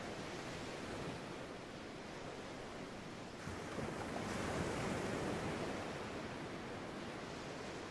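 Sea waves washing in, a steady wash with one wave that swells up about three and a half seconds in and then draws back.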